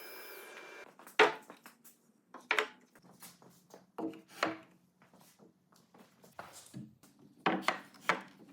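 Steady running noise with a thin whine stops abruptly about a second in. Then comes a series of sharp wooden knocks and rubbing, several loud, like freshly cut boards being handled and set down.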